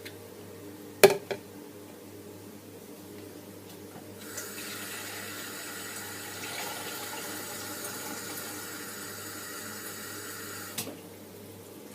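A sharp knock, then water running from a tap, filling a kettle, as a steady hiss for about six seconds that cuts off suddenly near the end.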